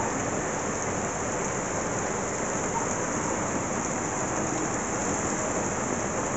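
Heavy rain pouring steadily onto a wet paved street, an even hiss of falling water with no letup.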